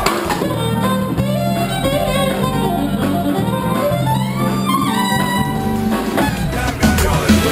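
Latin music with plucked guitar and violin over a steady bass line, the percussion dropping back and then returning about six seconds in.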